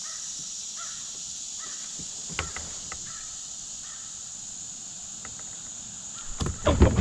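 Outdoor ambience: faint, short repeated bird calls over a steady high hiss, a few sharp clicks about two and a half seconds in, then loud rustling and knocking near the end as the angler handles his catch and gear.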